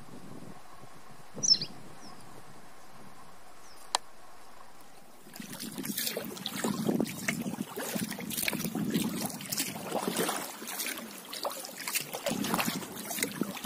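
One short, falling chirp from a small bird about a second and a half in, over a faint steady background. From about five seconds in comes water splashing and lapping around a kayak as it is paddled along a river, in uneven strokes.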